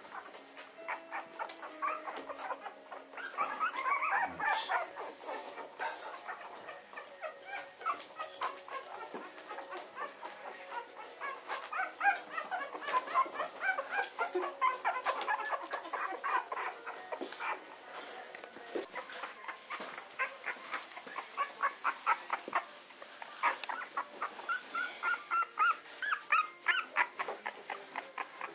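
Young puppies about 17 days old whimpering and squeaking: many short, high-pitched squeaks overlapping, coming thicker near the end.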